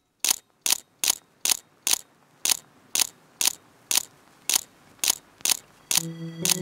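Sharp mechanical ticks at a steady pace of about two a second, slowing slightly, like a ticking mechanism. Music comes in near the end.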